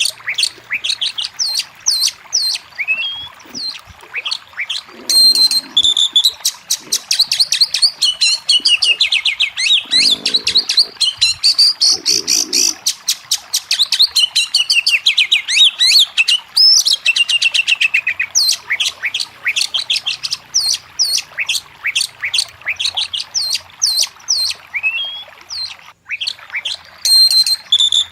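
Oriental magpie-robin (kacer) singing: a continuous, fast run of varied whistles, chirps and rapid trills, with a brief break near the end.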